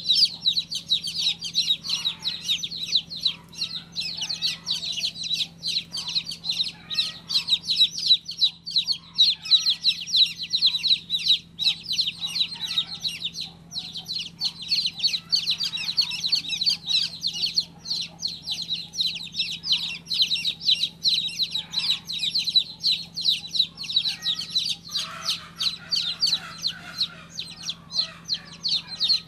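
A group of newly hatched chicks peeping without a break, many short high chirps overlapping several times a second.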